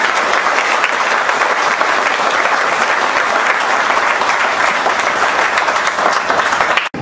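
A large audience clapping steadily, cut off suddenly near the end.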